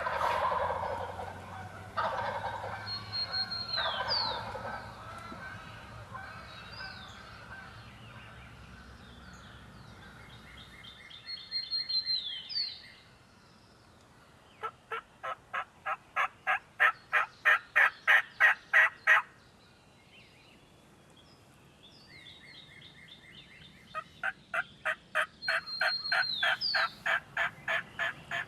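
Wild turkeys calling: short bursts of calls early on, then a long run of evenly spaced calls at about four to five a second in the middle, and another near the end. A brief high whistled note with a falling hook comes three times.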